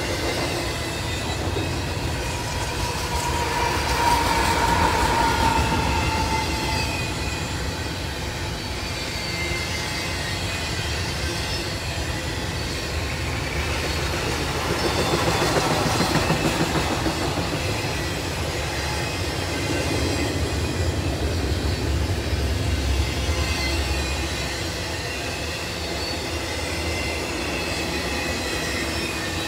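Intermodal freight cars loaded with double-stacked containers and trailers rolling past: a steady rumble of steel wheels on rail that swells twice, with a thin wheel squeal about four to six seconds in.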